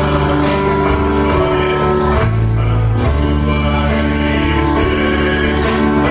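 Christian worship song: a group of voices singing together over a band with bass and regularly struck cymbals.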